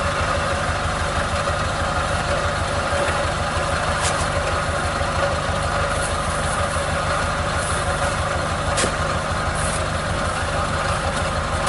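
An engine idling steadily with an even low throb, with a couple of short faint clicks about four and nine seconds in.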